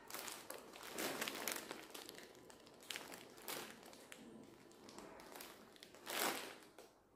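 A small plastic snack wrapper crinkling as it is handled and opened, in several short irregular bursts. The loudest burst comes about six seconds in, as the wrapper is brought to the mouth.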